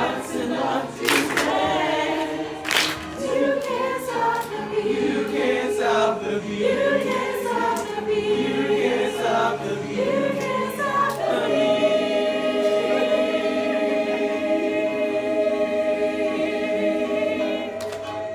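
Recorded choir singing an upbeat show tune over backing music, with a few sharp percussive hits in the first three seconds, then holding one long final chord from a little past the middle to the end.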